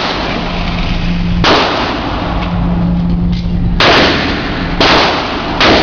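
Four gunshots from handguns on a shooting range, sharp cracks about one to two seconds apart, each trailing off in an echoing tail, over a steady low hum.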